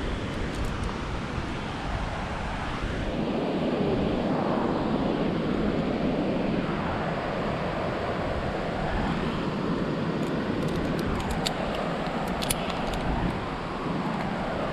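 Wind rushing over the microphone in gusts, swelling and easing every few seconds, with a few light metallic clinks of climbing gear about ten to thirteen seconds in.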